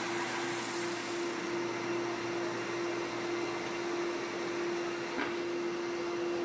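Flatmaster drum sander running with a steady hum and hiss as a wooden raised-panel door is fed under the drum at an angle, sanding off the old finish. The hiss is brighter for the first second and a half, and there is a single short tick about five seconds in.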